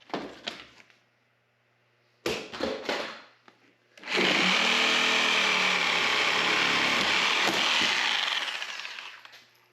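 A few wooden knocks, then an electric power tool starts abruptly about four seconds in and runs steadily. Near the end it winds down, its pitch falling as it fades.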